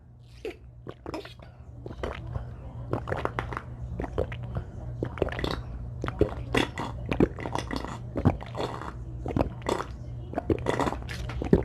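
Close-miked eating of Dungeness crab: chewing with many small irregular crunches and wet mouth clicks, over a low steady hum.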